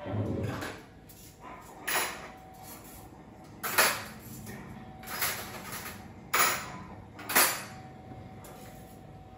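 Kitchen utensils clattering as they are put away into a drawer: a series of sharp knocks and clinks, about one to two seconds apart.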